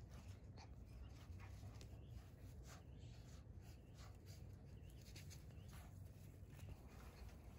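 Near silence: faint scattered rustles and soft ticks of a young puppy nosing and pulling at grass, over a low steady rumble.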